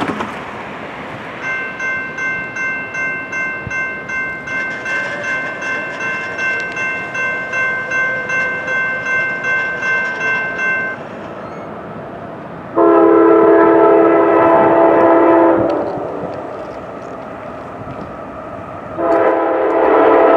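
Grade-crossing warning bell ringing about twice a second while the gates lower, stopping about eleven seconds in. Then the approaching Norfolk Southern GE AC44C6M locomotive sounds its multi-chime air horn in a long blast of about three seconds, and a second long blast begins near the end.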